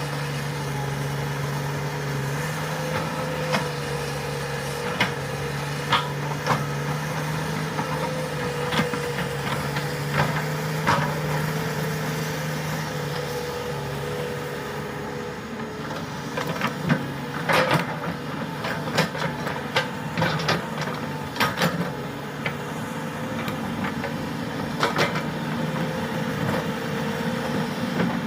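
Komatsu hydraulic excavator's diesel engine running steadily at working speed, with scattered sharp clanks and knocks, most of them in the second half.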